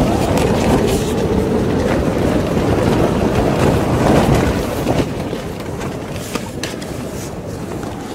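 Strong wind buffeting a nylon tent, the fabric flapping with short sharp snaps; the gust eases about five seconds in.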